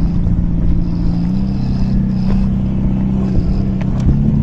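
Revolt RV400 electric motorcycle moving off slowly over dirt. A steady electric hum steps up in pitch about a second in, over a low rumble.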